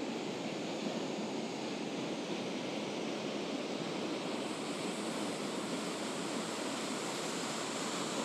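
Steady rush of fast-flowing water in a rocky mountain stream, an even hiss with no pauses.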